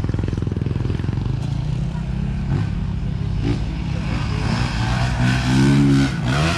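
A motor vehicle engine running steadily. About five seconds in, a louder engine note rises and falls.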